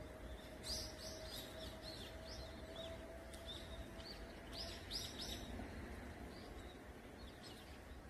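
Birds chirping: a flurry of short, high calls that thins out past the middle. A faint steady hum runs underneath and fades away.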